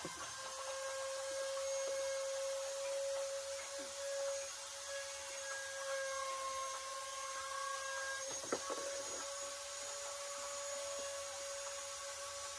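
A small electric motor running at a steady pitch, having just spun up, over a light hiss. A couple of sharp knocks come about two-thirds of the way through.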